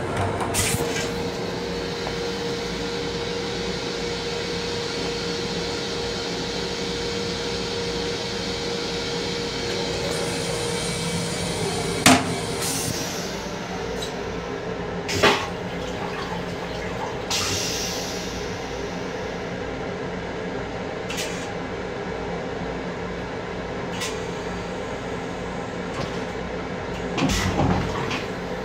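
An M7 commuter railcar's toilet running its flush cycle: a steady hum from the flush unit for about eleven seconds, then it stops, followed by a few sharp clicks and knocks. Throughout, the steady running noise of the train is heard inside the small restroom.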